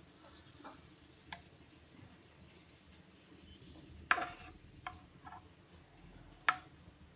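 Stemmed glass dessert goblets clinking as they are handled and the lemon layer is poured into them: a few sharp glass clinks with a short ring, the loudest about four seconds in and another near the end, over a quiet background.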